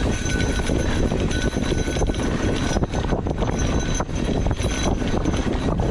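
Mountain bike rolling fast over a rough dirt trail: a steady loud rush with constant small rattles and knocks.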